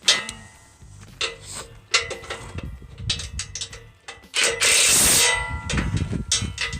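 Metal clanking and knocking of tools and steel sawmill track parts being handled, several sharp strikes that ring briefly. About four and a half seconds in comes a louder harsh noise lasting under a second.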